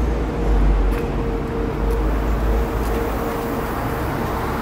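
Ride noise of a moving city bus heard from inside: a steady low rumble of the drive and tyres, with a faint constant tone over it.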